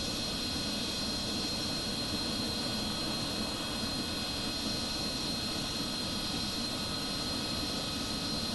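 Jet engines running steadily: an even rush of noise with a constant high whine.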